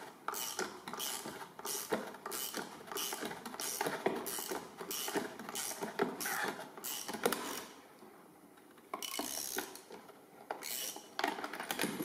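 Ratchet wrench turning the drive bolt of a hole punch so the punch cuts through sheet metal: a steady run of ratchet strokes, about two to three a second. The strokes pause about eight seconds in, then a few more follow.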